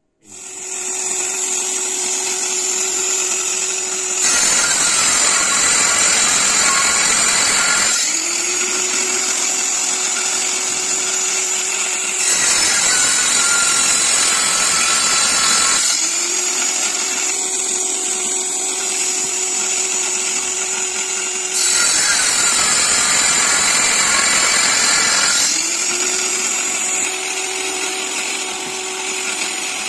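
Bench-mounted table saw running while a long white panel is ripped. Its blade gives a steady tone when spinning free and turns harsher and noisier during each cut of about four seconds, three times, with another cut starting near the end.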